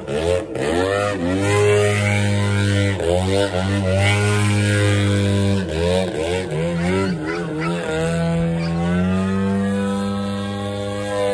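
Radio-controlled model airplane's motor and propeller running in aerobatic flight, its pitch dipping and rising again several times as the plane manoeuvres and passes, over a steady low drone.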